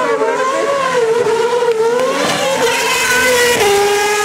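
Superleague Formula race car's V12 engine revving hard as it spins its rear wheels, the pitch rising and falling unevenly, then held steady from about three and a half seconds in.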